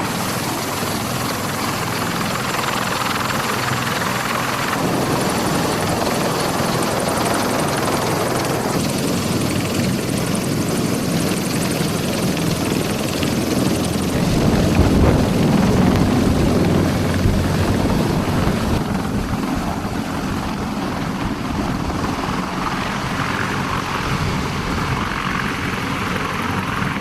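CH-53E Super Stallion helicopter's rotors and turbine engines running steadily, growing louder with a deep rotor beat for a few seconds about halfway through.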